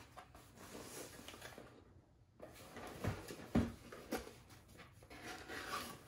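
Cardboard product boxes being lifted and handled over a shipping box, with light rustling and three short knocks a little after halfway, the loudest in the middle, as the boxes bump. The sound drops out briefly about two seconds in.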